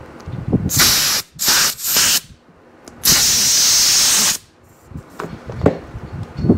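Compressed air hissing from an air chuck in three short bursts, then a longer burst of about a second and a half, putting a little air into the tire through the valve stem, its core removed, to work the wrinkles out. A few light knocks follow near the end.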